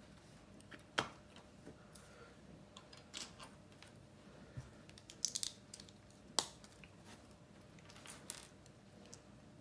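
Plastic Lego bricks being handled: scattered sharp clicks and taps as pieces are picked from a pile and set down on a wooden table, the loudest about a second in.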